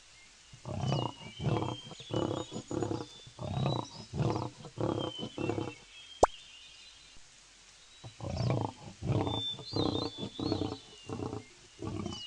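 A big cat calling in two series of rasping grunts, about two a second, the second series starting about eight seconds in. Birds chirp in the background, and there is a single sharp click about six seconds in.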